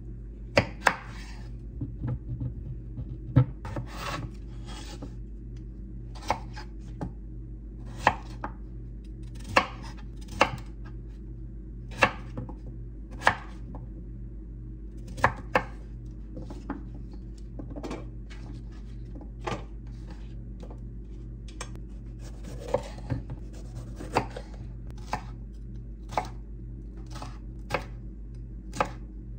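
Kitchen knife chopping bell peppers on a wooden cutting board: irregular sharp knocks of the blade meeting the board, about one or two a second.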